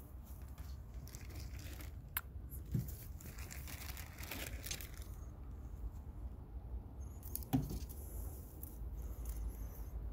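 Rabbit nibbling fresh basil leaves and stems: soft, irregular crunching and leaf rustling with a few crisp snaps.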